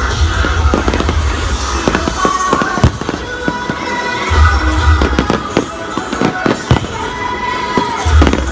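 Fireworks going off in a rapid series of sharp bangs and crackles over loud music.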